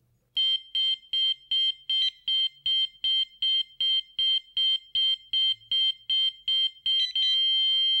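GE Choice Alert wireless alarm siren beeping rapidly and evenly, about two and a half high-pitched beeps a second, while it is in learn mode. About seven seconds in, the beeps give way to one long continuous tone, the sign that the siren has received the control center's test signal and is linked.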